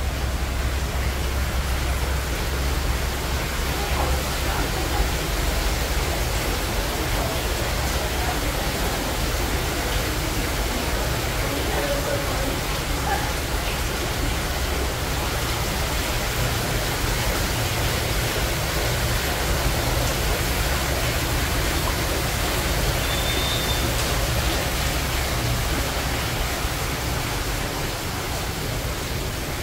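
Water spilling steadily over the rim of a stone fountain basin and splashing into the pool below.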